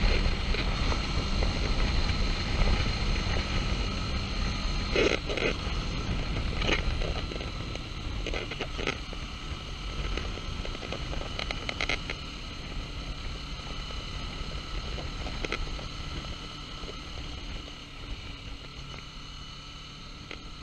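Wind rushing on the microphone of a motorcycle riding along a road, with the Kawasaki Vulcan S's parallel-twin engine running underneath. The sound eases off and grows quieter over the second half.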